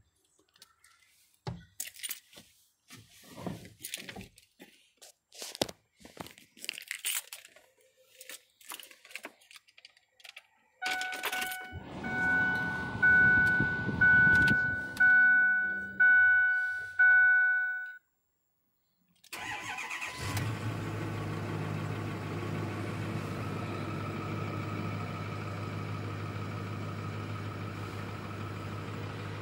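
Scattered handling clicks and rustles, then the truck's dashboard warning chime dings steadily about once a second with the key on. After a short break about two-thirds of the way in, the 2008 Ford F-550's 6.4-litre Power Stroke V8 diesel is running and settles into a steady idle.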